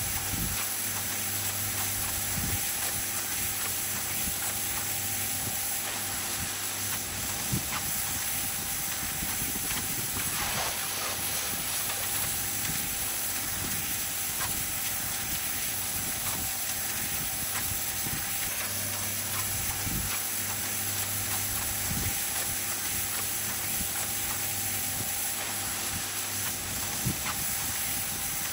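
Pressure washer running steadily: a motor or pump hum under the hiss of the water jet spraying the wet stone paving.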